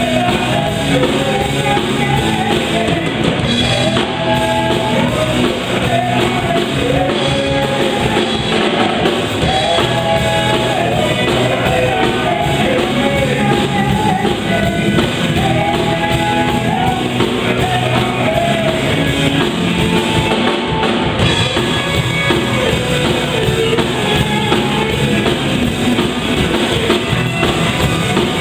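Worship band playing an upbeat song at rehearsal: drum kit, guitar and a sung melody over a steady beat.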